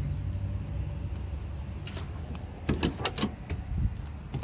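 Car door being handled: a click, then a quick run of clacks and knocks from the handle and latch as the door is opened, and a last click near the end, over a low steady rumble.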